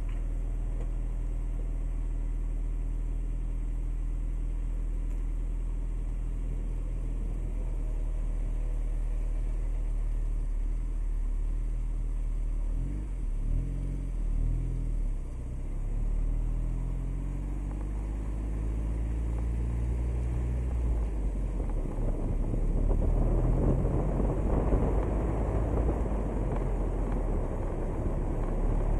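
Car engine idling, rising and falling in pitch for a few seconds midway as the car backs out and pulls off, then wind and tyre noise building and getting louder over the last third as it drives along the road, picked up by a microphone mounted on the outside of the car.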